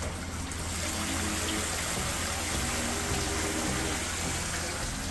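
Rope-pulled overhead rain shower: water sprinkles down from a bucket and spatters into a stone hot-spring soaking tub, swelling about half a second in and then running steadily, over the trickle of the tub's fountain spout.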